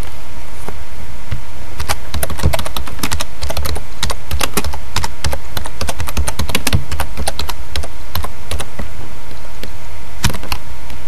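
Typing on a computer keyboard: irregular runs of keystrokes from about two seconds in, with a few last keys near the end, over a steady low hum.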